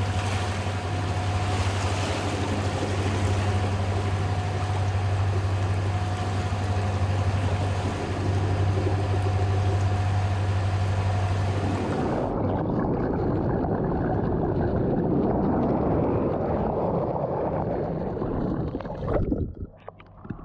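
The catamaran's two engines running at a steady drone under motor, with water rushing past. About twelve seconds in, the drone gives way to water rushing and splashing along the hull close by, with wind on the microphone.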